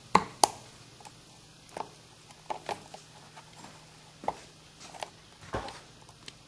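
Needle-nose pliers bending a new cotter pin back in the edger's blade shaft: two sharp metal clicks close together near the start, then scattered lighter clicks and taps.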